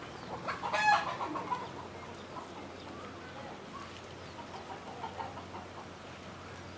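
Domestic chicken clucking: one loud, high squawk about a second in, followed by a few quieter clucks.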